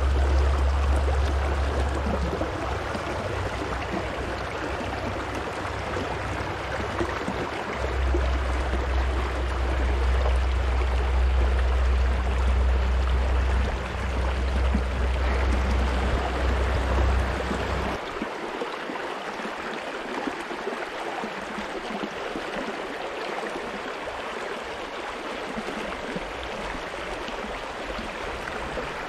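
Shallow, rocky freestone river rushing and gurgling over stones in a riffle, a steady even wash of water. A low rumble sits under it through much of the first half and stops about two-thirds of the way in.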